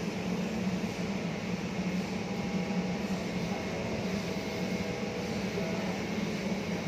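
Steady, low machine drone that holds at an even level without pause, like a running engine or machinery.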